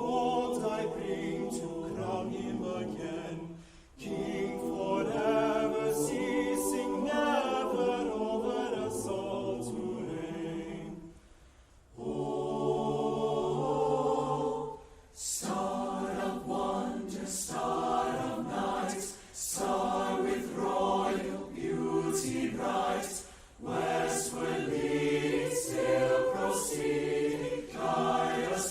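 Student choir singing in several voice parts, with short pauses between phrases.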